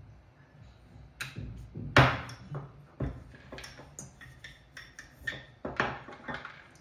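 Wooden rolling pin rolling dough thin on a round board, with irregular sharp knocks of the pin against the board and counter, the loudest about two seconds in.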